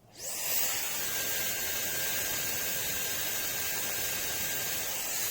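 Slopehill compact hair dryer with a high-speed brushless motor, switched on at full power with its diffuser removed. It gives a quick rising whine as the motor spins up, then a steady rush of air with a faint high whine.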